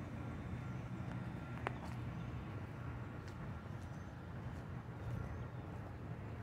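Steady low outdoor rumble with one sharp click about a second and a half in.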